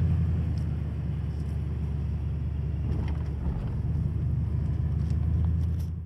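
Toyota Tundra TRD Pro pickup driving: a steady low rumble of engine and road noise.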